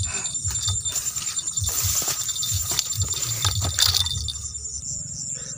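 Rustling, knocking and light clinking as a freshly caught fish and the fishing tackle are handled on the bank, over a steady high-pitched drone of night insects.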